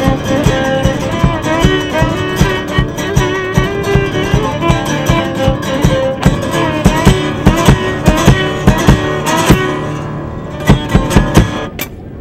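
A violin and an acoustic guitar play together: a bowed fiddle melody over steady strumming. About ten seconds in the music thins to a few last strums and stops.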